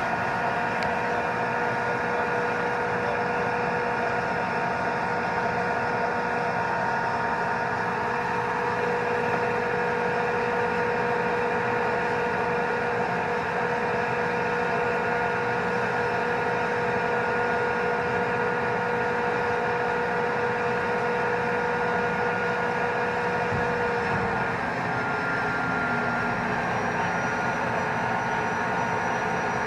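M1A1 Abrams tank's gas turbine engine running with a steady, multi-toned whine. About three-quarters of the way through, the pitch shifts: one whine drops away and a higher one rises.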